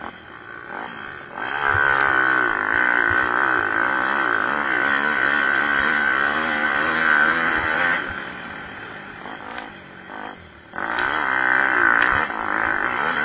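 Pit bike engines revving as the bikes race by, their pitch wavering up and down. The sound swells loud about a second and a half in, falls back for a couple of seconds around eight seconds, and surges again near the end.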